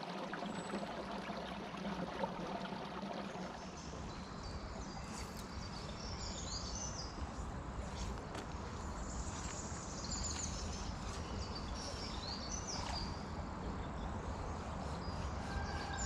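Outdoor ambience: a low wind rumble on the microphone, with small birds chirping on and off in the middle.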